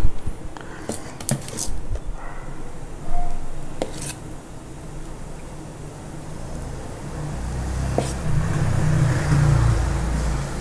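Vellai appam batter deep-frying in hot oil in an iron kadai: the oil sizzles and bubbles as ladlefuls of batter go in, the sizzle growing stronger in the last few seconds. A few sharp utensil clicks against metal and a low steady hum run underneath.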